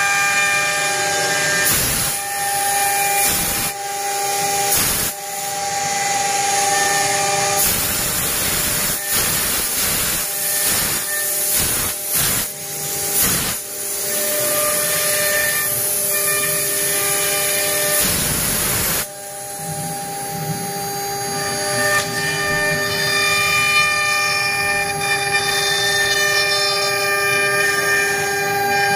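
CNC router spindle running with a steady high whine while its bit routes letters into a wooden board, with a continuous hiss of cutting over it. The sound dips briefly now and then, and drops in level about two-thirds of the way through before building back up.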